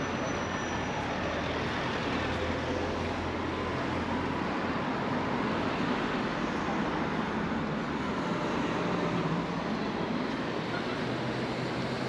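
Steady city street ambience: road traffic running past with a low rumble, no single event standing out.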